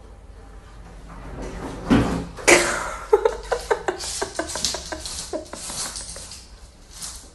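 Knocks and a run of quick clatters from a kitchen cupboard and drawer, with a frying pan inside, as a cat rummages in them: two heavy knocks about two seconds in, then many short sharp clicks and rattles.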